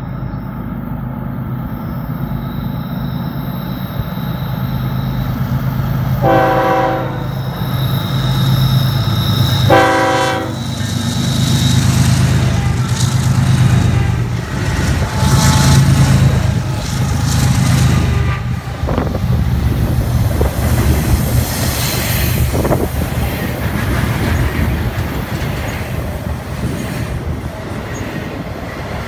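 Freight trains meeting: a diesel locomotive's air horn sounds two short blasts a few seconds apart over the steady running of diesel engines. Then the clatter and rumble of wheels on rail grow louder as the second train passes the container train.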